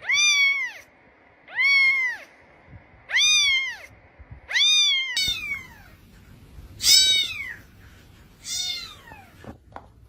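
Cat meowing: four rising-then-falling meows about a second and a half apart, then two louder meows that slide down in pitch.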